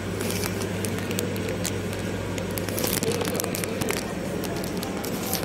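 Supermarket background noise: a steady low hum with a noisy wash over it, dotted with many small clicks and crackles.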